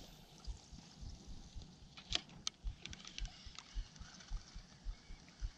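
Spinning reel being cranked at a steady pace to retrieve a lure: a soft rhythmic thump about twice a second, with a few sharper clicks about two seconds in.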